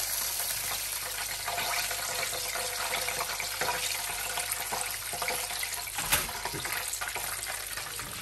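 Hot oil sizzling and crackling steadily around chicken pieces deep-frying in a frying pan as they are lifted out with metal tongs, with a single sharp knock about six seconds in.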